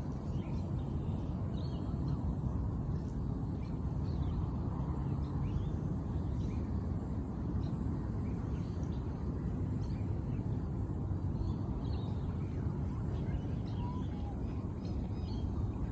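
Steady low outdoor rumble with faint, scattered short bird chirps above it.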